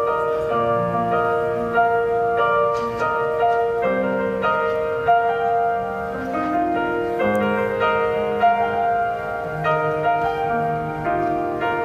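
Keyboard playing slow, sustained chords over a moving bass line, with one upper note held throughout, and no singing.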